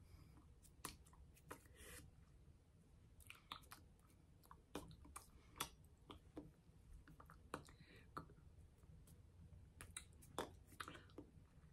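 Near silence broken by faint, irregular clicks and lip smacks from a person's mouth and hands as she signs, with a soft breath or two.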